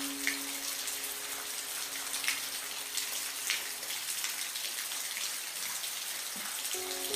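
Steady rain falling, an even hiss with scattered single drops ticking through it. Soft held music notes fade out just after the start and come back near the end.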